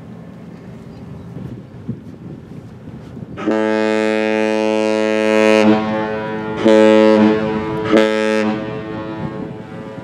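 Lake freighter's horn sounding one long blast of about two seconds, followed by two shorter blasts.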